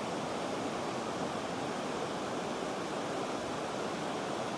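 Creek water running steadily over a shallow rocky riffle.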